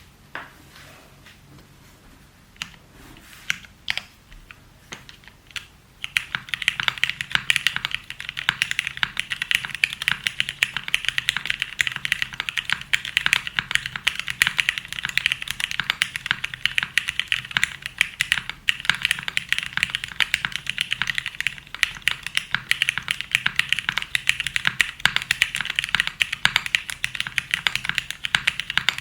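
Sharp clicking: a few scattered clicks at first, then fast, continuous clicking from about six seconds in.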